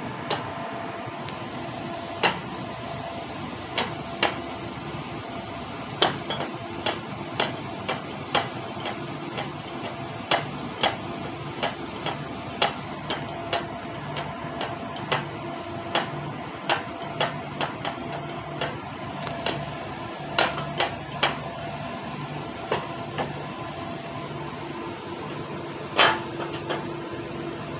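Steady hum of a fishing trawler's deck machinery, with frequent sharp knocks and clanks at irregular intervals; a few are much louder than the rest.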